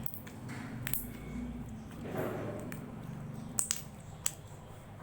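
Slime being squished and handled, with a soft squelch about two seconds in and a few sharp clicks and pops near the end.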